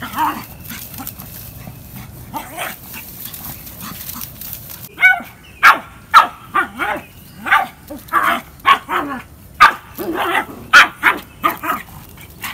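Pug barking: a few quieter barks at first, then from about five seconds in a rapid string of sharp, loud barks, several a second.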